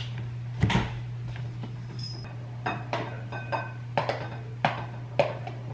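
A glass food container and a ceramic bowl knocking and clinking on a stone countertop as food is tipped from one into the other. There is a dull thud about a second in, then a run of irregular light clinks and taps.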